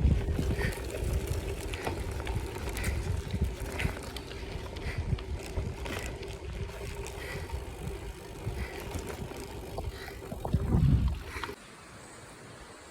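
Wind buffeting the microphone over the rumble of a bicycle rolling along a path, with a faint steady hum underneath. Near the end it cuts off suddenly to a quiet hiss.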